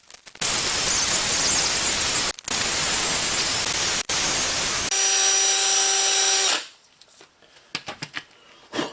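Wire brush on a power drill scouring rust off a brake caliper bracket's hardware points, a loud rough scrubbing with two short breaks, then a steady whine for about a second and a half before it stops about six and a half seconds in.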